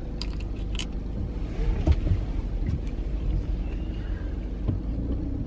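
Road noise inside a moving car: a steady low rumble of engine and tyres, with a few light clicks and taps over it.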